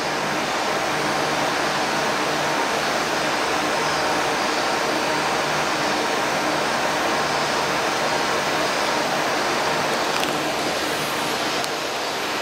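A steady mechanical hum under an even rushing noise, unchanging throughout, of the kind made by building fans or pumps.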